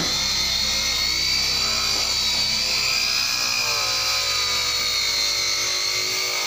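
Electric rotary polisher with a foam pad running against a car's painted door panel, a steady high whine that wavers slightly in pitch as the pad works the surface. It is compounding freshly repainted silver bodywork.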